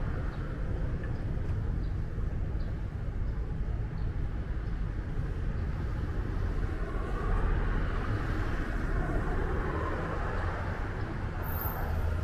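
Street ambience with a steady low traffic rumble; a passing vehicle swells louder about two-thirds of the way through.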